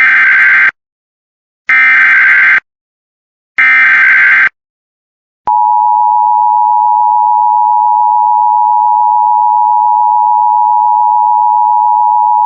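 Emergency Alert System activation: three short bursts of SAME digital header data, about a second each and two seconds apart, encoding a severe thunderstorm warning. About five and a half seconds in, the steady two-tone EAS attention signal begins.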